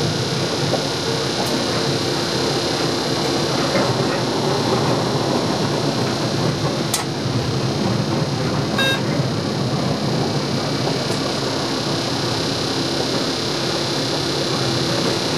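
Steady running noise inside a passenger train's driver's cab on the move: rolling rumble and hiss with a constant hum. A sharp click comes about seven seconds in, and a brief electronic beep from the cab equipment just under two seconds later.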